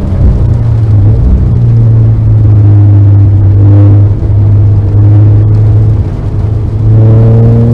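Car engine running at a steady pitch under load, then climbing in pitch near the end as it accelerates.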